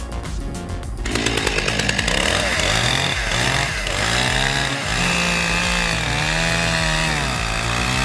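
Chainsaw running under load while cutting wood, its engine pitch sagging and recovering several times as the chain bites, starting about a second in over background music.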